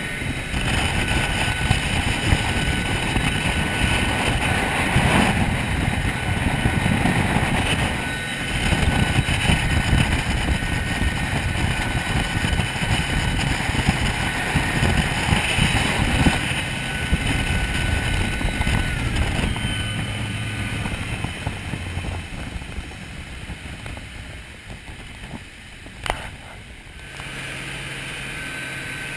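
Outboard engines of a SeaVee center-console boat running at speed, mixed with rushing wind and water. The sound eases off a few seconds before the end, with a single sharp click near the end.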